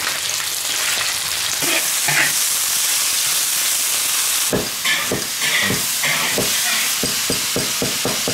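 Sliced meat sizzling loudly in hot oil in a large wok as it is stirred with a metal spatula. About halfway through, the sizzle gives way to a cleaver chopping garlic on a wooden block, the strokes quickening to about four a second.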